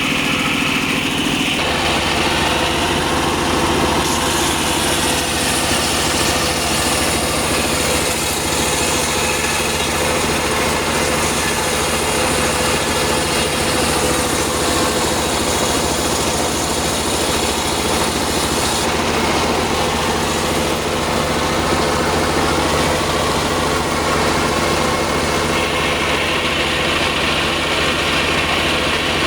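Circular sawmill machine (serkel) running steadily while sawing sengon wood. Its engine-driven drone holds even, and its higher whine shifts a few times.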